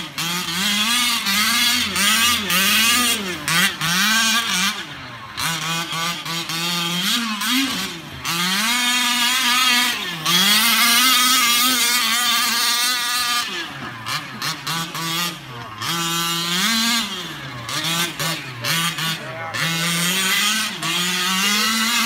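Losi WRC radio-controlled rally car's motor revving up and down over and over as it is driven hard, its pitch climbing and dropping with each burst of throttle and falling back briefly several times.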